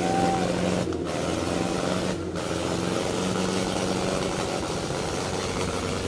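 Tractor diesel engine running loudly and steadily.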